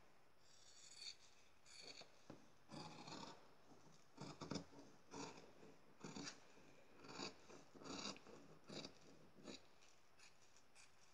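Sewing scissors cutting fabric along a pinned paper pattern piece: a series of quiet, short snips, about one a second, stopping near the end.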